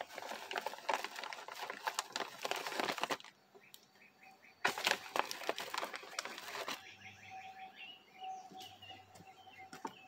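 Two stretches of dense crackling rustle, one about three seconds long at the start and one about two seconds long a little before the middle. Between and after them a small bird calls in quick runs of short chirps.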